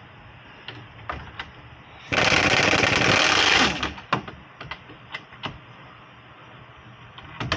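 A power wrench runs in one loud burst of about a second and a half, driving in a rear wheel hub bearing bolt. Sharp metal clicks and taps of the tools come before and after it.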